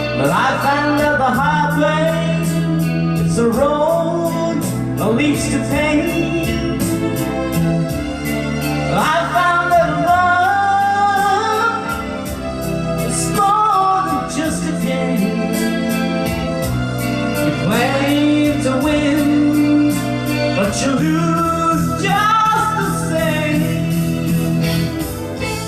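Karaoke: a voice singing a melody over a backing track with held bass notes and a regular beat.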